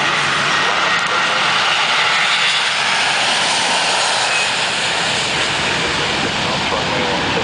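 Twin Rolls-Royce Trent 700 turbofan engines of an Airbus A330-300 at take-off thrust: a loud, steady rush of jet noise as the airliner rotates and lifts off.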